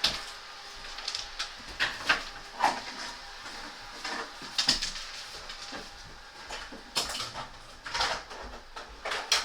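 Irregular knocks, clicks and clatter of the removed air conditioner unit and its parts being picked up, carried and set down.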